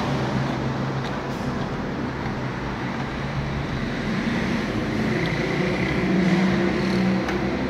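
Willpex WP653 household sewing machine running steadily, its motor humming as it sews a blind hem stitch test on a folded fabric hem.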